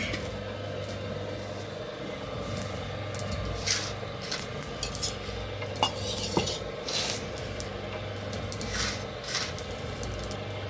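Black peppercorns being ground on a grinding stone: irregular scraping strokes of stone on stone, with a few sharp clicks.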